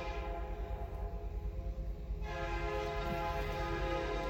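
Locomotive air horn sounding a chord for a grade crossing: one blast fades and a fresh blast starts about two seconds in, over a steady low rumble.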